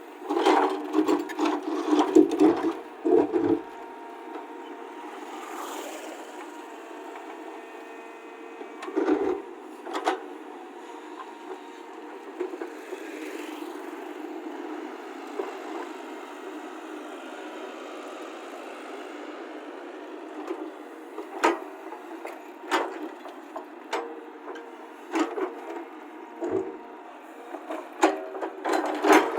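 Radio-controlled construction machine models working: a steady electric motor whine with clattering knocks, in a burst at the start, again about ten seconds in, and repeatedly near the end.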